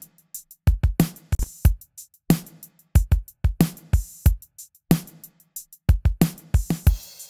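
A drum kit groove playing back through a studio EQ plugin with its preamp section bypassed: steady kick, snare and hi-hat hits, with a cymbal wash coming in near the end.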